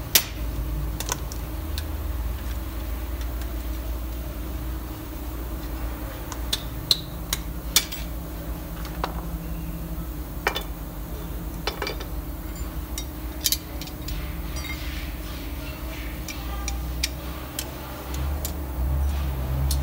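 Irregular sharp metallic clicks and clinks, a dozen or so, as steel drum brake shoes, springs and nuts are handled and set down on a concrete floor, over a steady low hum.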